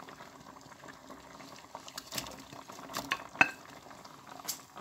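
A pan of broth boiling steadily, with several sharp clinks of a dish against the pan as pieces of sweet potato are tipped in; the loudest clink, about three and a half seconds in, rings briefly.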